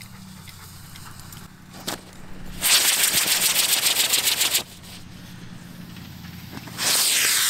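Model rocket motors firing in a cardboard pyramid firework: a loud, rough hiss with a fast crackle for about two seconds that cuts off suddenly, then about two seconds later a second loud hiss with a falling whistle in it.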